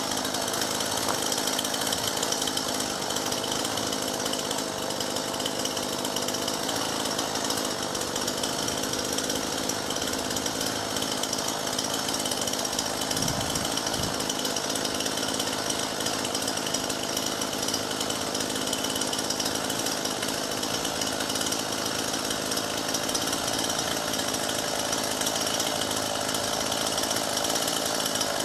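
Two-stroke chainsaw running at a steady speed, with no rise or fall in revs.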